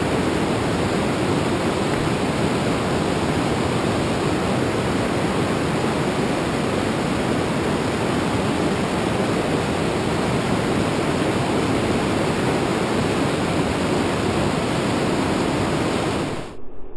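Whitewater rapids rushing, a steady even roar of moving water that cuts off sharply near the end.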